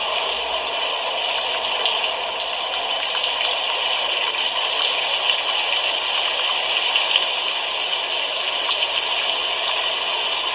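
Steady rain falling: an even hiss dotted with many small drop taps.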